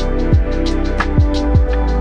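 Background music with a beat: deep kick drums that drop in pitch, struck three times, with crisp hi-hat ticks over held chords.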